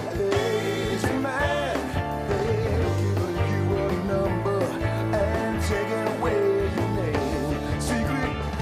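Live rock band playing: a man singing lead into a handheld mic over electric guitars, bass guitar and drums, with bandmates joining in on backing vocals.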